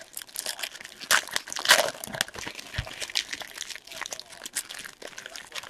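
Foil wrappers of trading-card packs crinkling and crackling in the hands as packs are torn open and the wrappers crumpled, in irregular bursts that are loudest a little over a second in.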